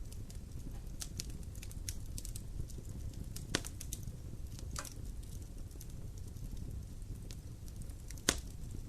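Wood fire in a fireplace crackling: a steady low rumble of flames under scattered small crackles, with two sharper pops, one about a third of the way in and one near the end.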